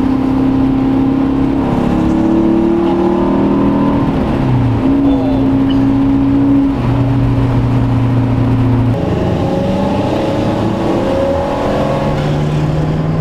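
Porsche 914 2.0's air-cooled flat-four engine running under way at a steady pace, its note stepping up and down in pitch a few times as the revs change. About nine seconds in, the engine sound changes abruptly.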